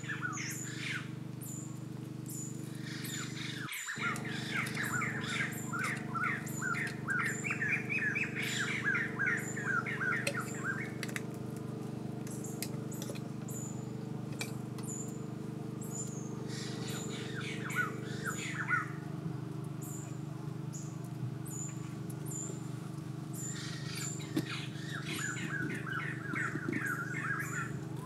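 Small birds chirping in quick repeated series, in several bouts, over a steady low hum.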